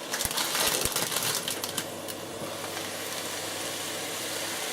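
A few light clicks and rustles in the first two seconds, then a steady hiss of a pan of mushrooms frying and a pot of noodle water boiling on the hob.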